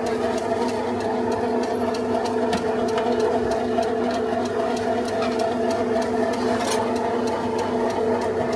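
Steady mechanical hum from a small motor, holding several constant tones, with faint light clicks over it.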